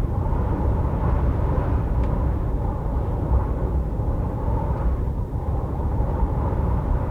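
Steady low rumble of storm wind, with a haze of noise above it and no distinct events.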